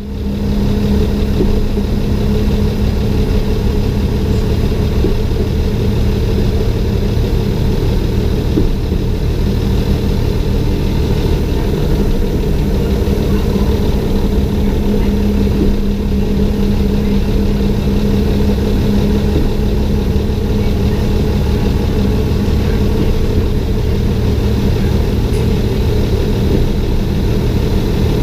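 A railbus's diesel engine running steadily while the railbus travels along the line, heard from a camera on its front.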